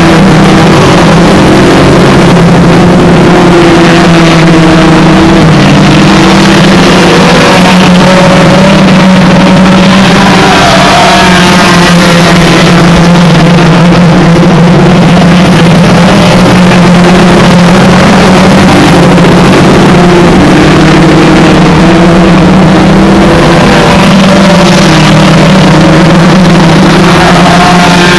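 Several hot rod race cars' engines revving, their notes rising and falling as they race round the track. Underneath is a steady low engine drone. Loud.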